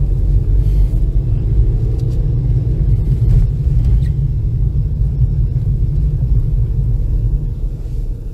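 Steady low rumble of a car's engine and tyres heard from inside the cabin while driving, dipping slightly near the end.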